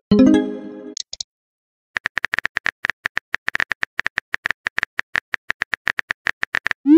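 Chat-app sound effects: a short chime of a few stacked tones as a message arrives, then rapid keyboard tapping clicks for about five seconds as a new message is typed, ending with a quick rising swoop of the send sound.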